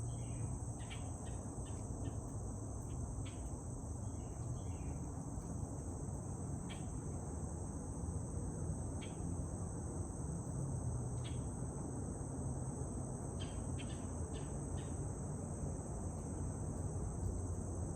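Steady high-pitched drone of insects over the low, constant rumble of highway traffic, with brief high chirps scattered through.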